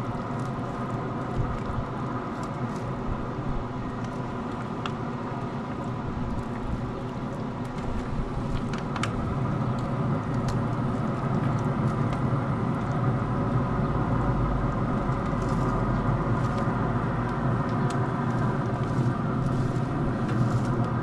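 A steady mechanical hum like a running engine or motor, with a few faint clicks; it grows slightly louder about halfway through.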